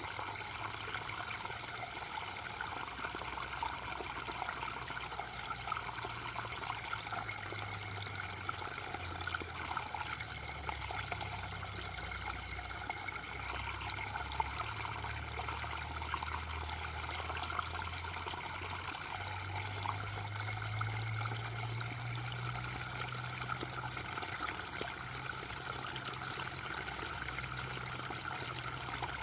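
Waterfall splashing steadily, an even rush of falling water with no breaks, over a low hum that slowly shifts in pitch.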